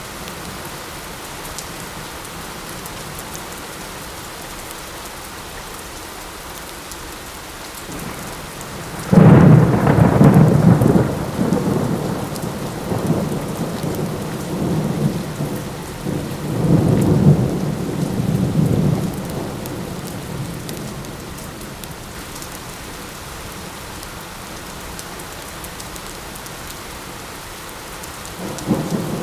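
Steady rain falling, with a loud clap of thunder about a third of the way in that rolls on in a low rumble, swells again, and fades away; another roll of thunder begins near the end.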